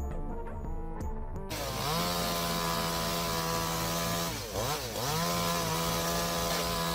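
Background music, then about a second and a half in a chainsaw engine cuts in, running steadily at high speed; around the middle its pitch drops sharply for about half a second and climbs back, and it runs on steadily.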